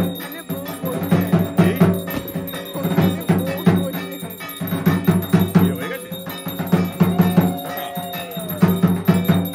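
Aarti music with steady rhythmic drumbeats and ringing bells. A held, wavering tone rises above the drumming from about six seconds in.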